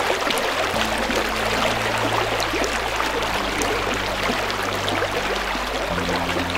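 Steady rushing water, like a stream, with crackling detail, over background music whose sustained low notes change about a second in, midway, and near the end.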